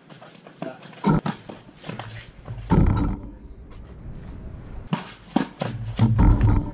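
Pickup basketball game heard from a camera on the hoop: several heavy thuds from the ball against the backboard and rim, the loudest near the end as a layup goes up, along with players' shouts.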